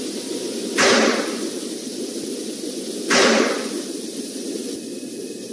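Two heavy knocks about two seconds apart, each dying away over about a second, over a steady hiss of recording noise: the knocks said to have been captured at night beside the mummy.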